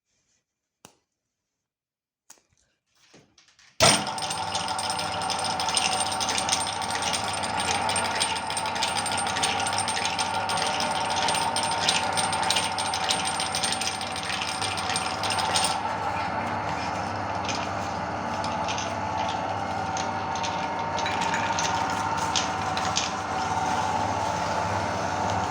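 Electric meat grinder switched on about four seconds in and running steadily with a motor hum, crackling and crunching as it grinds cookies; a few faint clicks before it starts. The crackling thins out a little past halfway.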